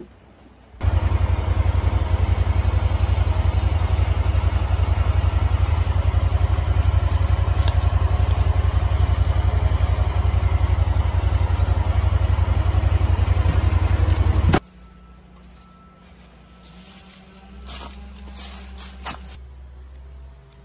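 An engine running steadily at an even pace. It starts abruptly about a second in and cuts off suddenly about three-quarters of the way through, leaving only faint sounds.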